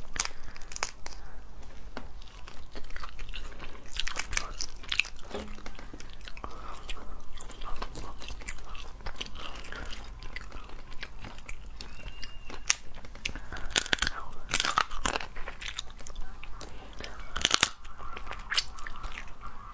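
Cooked shellfish shells crackling and snapping as they are pulled apart and peeled by hand, with close-up crunching and chewing, in irregular bursts of sharp clicks.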